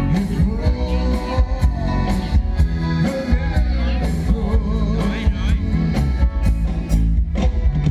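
Live band music over loudspeakers: a male singer over electric guitars, bass and a steady drum beat.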